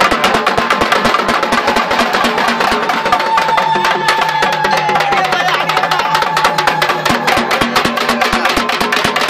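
Festival drums beating fast and steady, many strikes a second, with one long high note held from about three seconds in that dips as it ends about two and a half seconds later.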